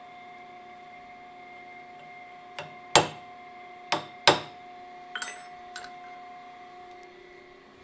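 Hammer blows on a steel punch held against a camshaft, straightening the bent shaft: four sharp metallic strikes in the middle, the first lighter, each ringing briefly, then a few light clicks of tooling. A steady machine hum with a fixed tone runs underneath.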